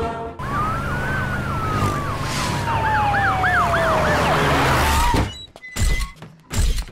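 Police vehicle sirens: one winds steadily down in pitch while another yelps in quick rising-and-falling cycles. They cut off about five seconds in, and two heavy thuds follow.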